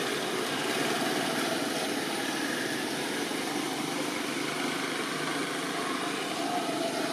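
Steady background engine noise, like vehicles running or idling.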